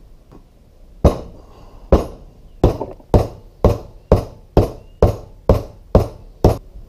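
Blows on the end of a hydraulic lift cylinder's piston rod, driving the piston with its new seals down into the cylinder barrel. There are eleven sharp strikes: the first two about a second apart, then about two a second.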